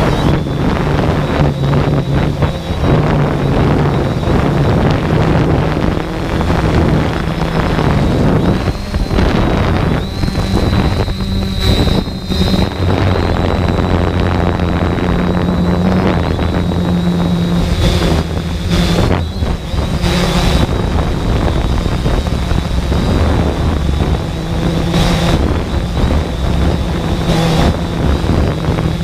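Quadcopter drone's motors and propellers humming steadily, with the pitch stepping up and down as it flies, heard through its onboard camera with wind rushing over the microphone and a few brief gusts.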